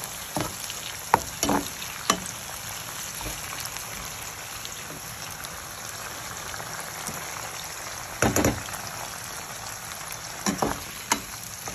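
Green chili peppers frying in oil in a pan: a steady sizzle, with scattered sharp clicks and knocks, the loudest about eight seconds in, as they are stirred with a slotted skimmer spoon.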